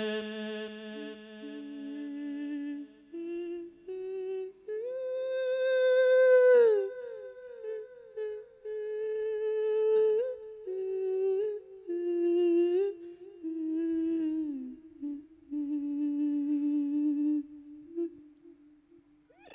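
A Buddhist monk's voice through a microphone, humming a slow wordless melody in Thai lae sermon chanting. The line climbs over the first few seconds, then falls in wavering, ornamented turns with short breaks, and ends on a long held note that fades out.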